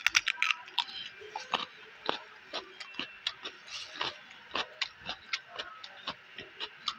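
A man bites into a raw green vegetable and chews it with his mouth close to a clip-on microphone. The chewing makes crisp, wet crunches at about three a second, thickest at the first bite.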